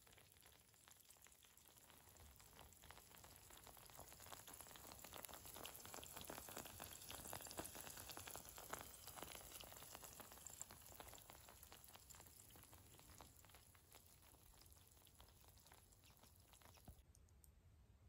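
Eggs frying in a pan over a wood campfire: a faint, steady crackling sizzle that swells towards the middle, fades again, and cuts off abruptly near the end.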